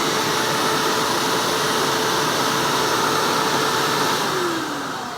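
Hoover U6436-900 upright vacuum cleaner's motor running steadily on a test run after repair, running properly. About four seconds in it is switched off and winds down, its whine falling in pitch.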